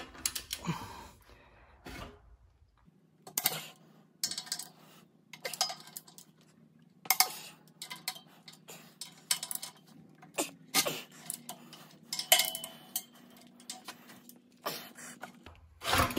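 Irregular metallic clinks and knocks, roughly one a second, as a long torque wrench and socket work the ring-gear bolts of a Dana 44 differential carrier up to 135 foot-pounds, the carrier and shop-press rack shifting under each pull.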